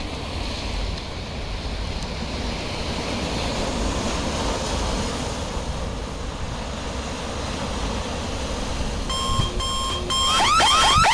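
Steady wash of sea waves breaking on rocks. About nine seconds in, an electronic alarm clock goes off: three short beeps, then quick repeated rising chirps, louder than the surf.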